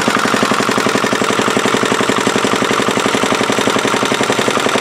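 Antique Yanmar diesel engine running at a steady speed, with a loud, rapid and even firing beat.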